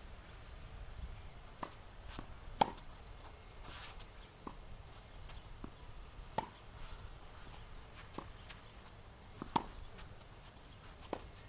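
Tennis ball struck back and forth with rackets in a rally: sharp single pops about every one and a half to two seconds, with a few fainter knocks between them. The loudest hit comes about two and a half seconds in.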